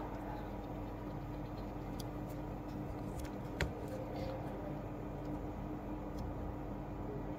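Steady low electrical hum, with a few faint clicks near the middle.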